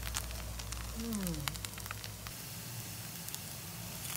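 A bánh xèo (Vietnamese rice-flour crepe) frying in oil in a pan, with a steady sizzle and scattered small crackles as it crisps.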